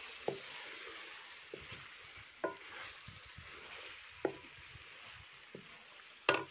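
Potato and radish-pod curry sizzling in a metal pot as a wooden spatula stirs it, the spatula knocking against the pot about every one to two seconds, with the loudest knock near the end. The sizzle is the curry frying in its own separated oil once the water has cooked off.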